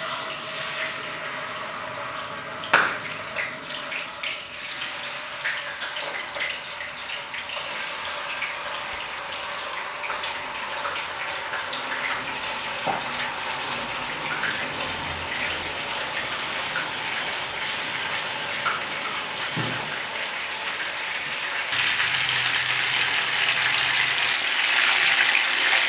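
Marinated chicken pieces frying in hot oil in a non-stick pan: a steady sizzle full of small crackles and spits as the pieces are laid in one after another, the first stage of a chicken roast, where the pieces are lightly fried. There is one sharp knock about three seconds in, and the sizzle is louder in the last few seconds.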